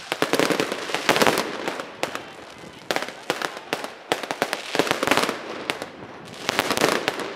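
Fireworks display: aerial shells bursting one after another, with clusters of many rapid sharp pops coming in waves every second or two.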